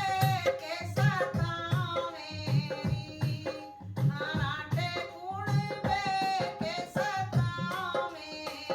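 A woman singing a Hindi folk song over a hand drum that keeps a steady beat of about two to three strokes a second.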